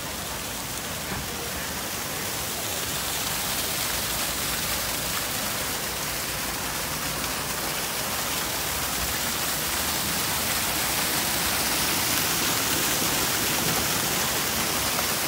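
Water pouring down a man-made waterfall: a steady rushing noise that grows gradually louder.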